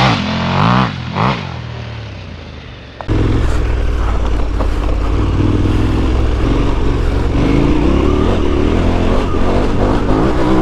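Motorcycle V-twin engine of a KTM 1290 Super Adventure S revving up and down off-road, the revs fading over the first three seconds. About three seconds in it cuts abruptly to a louder, steady engine sound with wind and road noise.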